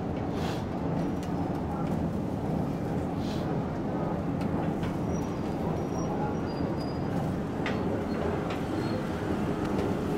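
Steady low rumble of a busy grill kitchen, with a few light clicks and taps as grilled chicken wings are handled into an aluminium foil tray.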